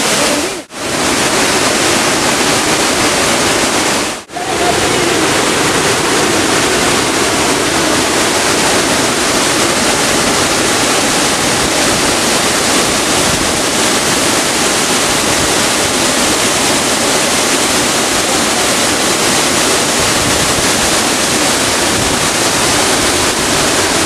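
Waterfall pouring over rock into a pool: a loud, steady rush of water, broken by two very brief dropouts in the first few seconds.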